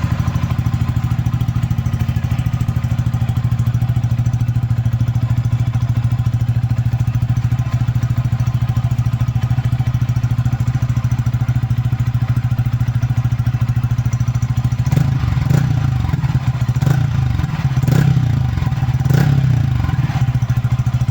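Yamaha Sniper 155's single-cylinder four-stroke engine idling steadily through a HUN Racing power pipe aftermarket exhaust, just after starting. Near the end, four short throttle blips raise the exhaust note briefly before it drops back to idle.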